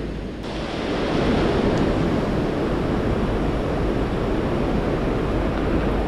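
Steady rushing of a swollen mountain river's current, with some wind on the microphone. It grows fuller about half a second in.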